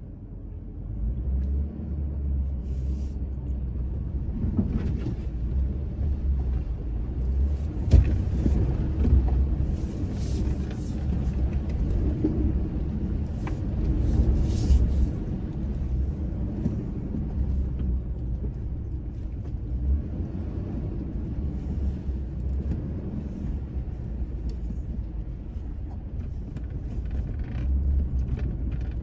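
Low, steady rumble inside the cabin of a Toyota Land Cruiser Prado 120, its 1KZ-TE 3.0-litre turbo-diesel pulling it slowly over a rutted mud track, with occasional knocks as the body jolts over the bumps.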